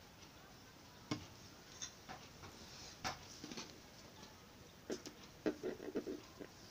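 Light scattered taps and rustles of hands handling a satin-ribbon flower on a wooden tabletop, with a quick run of small taps near the end.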